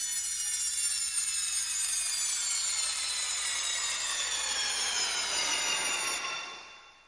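A ringing, many-toned sound added to the soundtrack, its pitches all sliding slowly downward together before it fades out about six seconds in.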